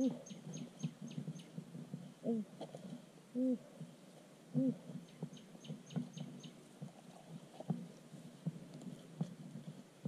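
Short low hoots, each rising then falling in pitch, repeated at uneven gaps of a second or more among scattered soft knocks, with a rapid high chirping trill about halfway through.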